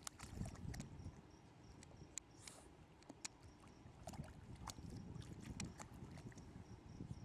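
Boston terrier puppy splashing in a shallow mud puddle, biting and pawing at the muddy water in irregular wet slaps and small clicks, over a low rumble.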